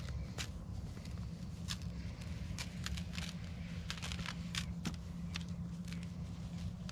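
Pelletized dolomite lime being spread and worked by hand over potting mix in a plastic planter: scattered light ticks and rustles at irregular intervals, over a steady low hum.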